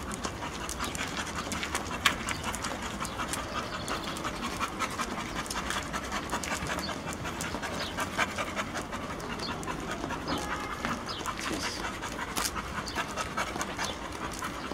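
Pit bull panting steadily with its mouth open, in quick short breaths.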